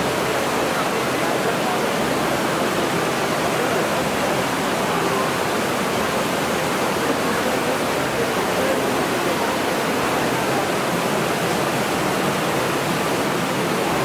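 Waterfall in a rock gorge rushing steadily: a dense, even wash of falling water with no breaks.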